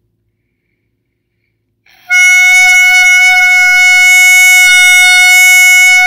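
Clarinet mouthpiece and barrel (the 'small instrument') blown on its own, sounding one long, steady, loud high note that starts about two seconds in. The even, unwavering tone shows a firm embouchure that is not pinching the reed shut.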